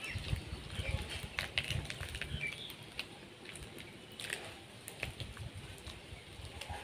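Close-up chewing of soft chocolate pastry, with scattered light clicks of a plastic spoon against its plastic cup.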